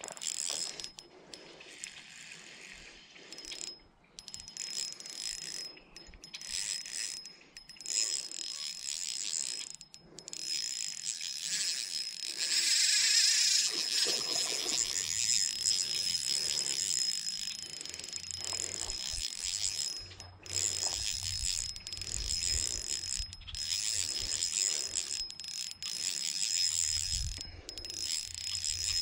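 A Shimano 1000-size spinning reel being cranked, its gears whirring with a thin high whine in short stretches broken by brief pauses: the stop-and-go retrieve of a jig being worked back.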